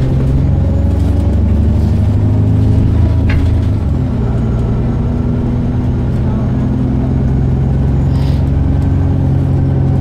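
Alexander Dennis Enviro400 double-decker bus running under way, heard inside the lower deck: a loud, steady low drone with several layered hums, its note changing about four seconds in. It is the strange noise the rider cannot figure out.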